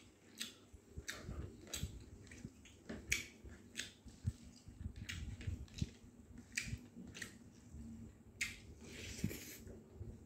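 Close-up eating sounds: chewing mouthfuls of boiled mutton and rice, with irregular wet smacks and clicks of the lips and tongue.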